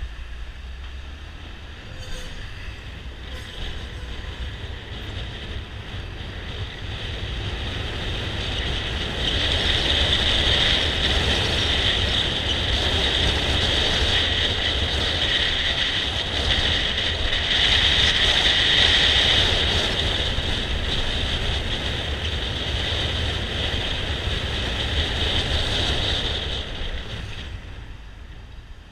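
Wind and road noise on a GoPro riding on a moving motor scooter: a steady low rumble and rushing hiss. It builds as the scooter picks up speed about a third of the way in and dies down near the end.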